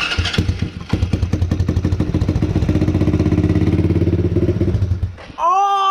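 Freshly swapped ATV engine running with an even rhythm, picking up a little in speed, then cutting out about five seconds in; it dies with barely any gas in the tank. A loud shout follows near the end.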